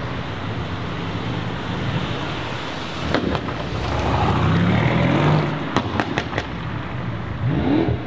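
Mercedes-AMG twin-turbo V8 driving off under throttle: a low exhaust rumble that revs up about halfway through and again near the end, with a string of sharp exhaust pops and crackles between the revs.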